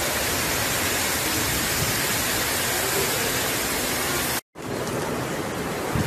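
Heavy rain and strong wind of a tropical cyclone, a steady dense hiss. It cuts out for an instant about four and a half seconds in, then carries on.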